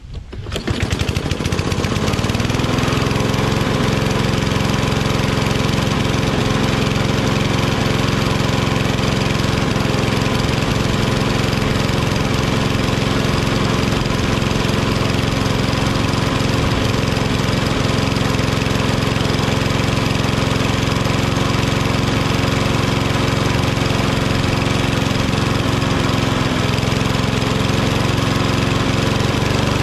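Kohler XT675 single-cylinder mower engine pull-started, catching at once and then running steadily. It is running on a newly replaced auto-choke thermostat arm, sounding good, with the speed a little low to the owner's ear.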